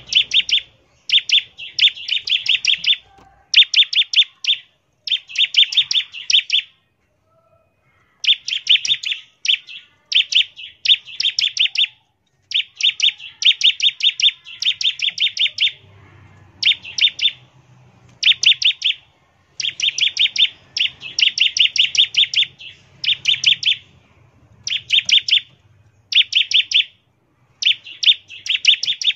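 Bar-winged prinia (ciblek) singing in rapid stuttering bursts: each burst is a quick run of high repeated notes, the 'ngebren' call, repeated over and over with short pauses between.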